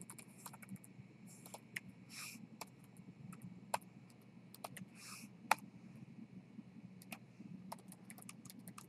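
Computer keyboard being typed on: faint, irregular keystrokes at an uneven pace, with a couple of sharper key clicks.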